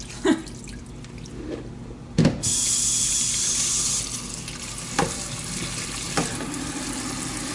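A couple of knocks, then a kitchen faucet is turned on about two seconds in and water runs steadily into a bowl of blueberries in a stainless-steel sink, strongest at first, with a few light knocks of the bowl against the sink.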